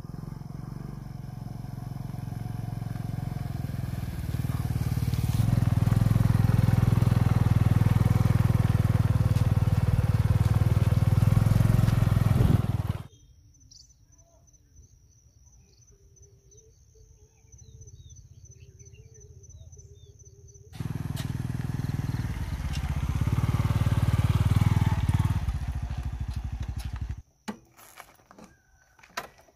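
Engine of a small Suzuki step-through motorbike running and getting louder as it approaches, then suddenly gone about halfway through. A quiet stretch follows with a steady high-pitched tone. The engine runs again and is switched off a few seconds before the end, followed by a few light knocks.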